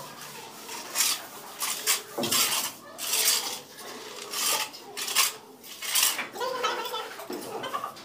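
Hand float rasping over fresh cement plaster in repeated irregular strokes, about one a second, as the plaster on the underside of an arch is rubbed smooth.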